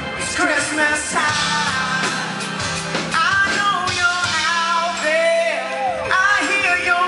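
Live pop-rock band playing, with a male lead singer singing over the band.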